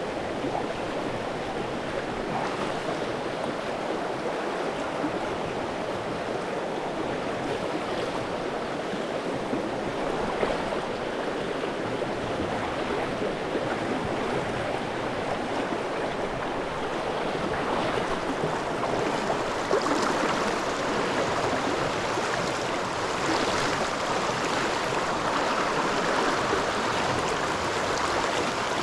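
Trout stream flowing, a steady rush of running water that gets a little louder in the later part.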